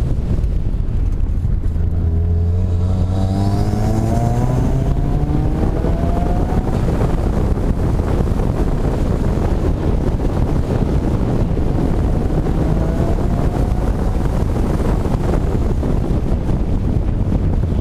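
A 2016 Subaru WRX's turbocharged 2.0-litre flat-four under hard acceleration, its engine note rising in pitch about two seconds in and again about two-thirds of the way through, over heavy wind noise.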